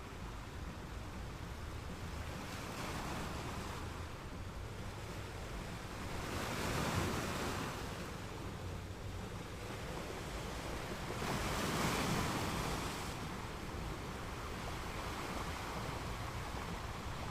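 Ocean waves washing ashore: a steady hiss of surf over a low rumble, with two larger waves breaking and swelling up, about seven and twelve seconds in.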